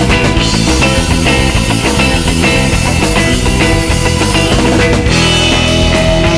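Background rock music with electric guitar and a steady beat; the texture changes about five seconds in.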